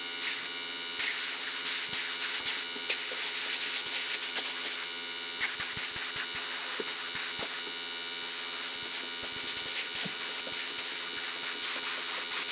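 Airbrush spraying color-shift metallic paint onto a lure: a steady hiss that breaks off and resumes several times as the trigger is let go and pressed again, over a steady hum and a few faint clicks.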